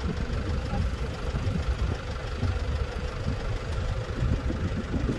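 River ferry's engine running steadily, a low rumble with a faint steady hum.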